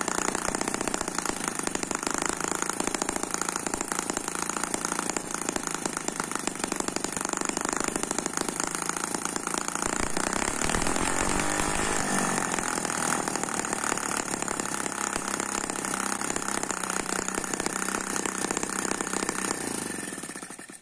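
Miniature twin-cylinder four-stroke water-cooled gasoline model engine running fast with a rapid, busy firing note. About halfway through its speed shifts as the carburetor throttle barrel is worked, and near the end it slows and dies away.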